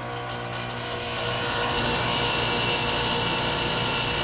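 Air-conditioner condensing unit running, its scroll compressor and condenser fan going with a steady hum and rush of air that builds over the first two seconds and then holds even. It is pumping down, drawing the refrigerant out of the low side into the outdoor unit.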